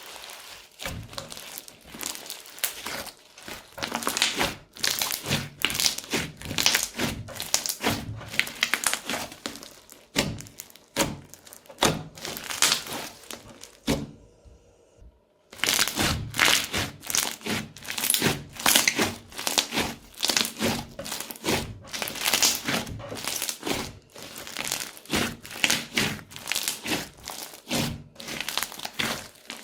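Crunchy slime being worked by hand, giving dense, irregular crackling and popping with soft thunks, broken by a short pause about halfway through.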